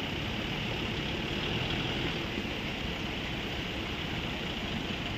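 Pickup truck's engine running as it drives slowly past, a steady low rumble.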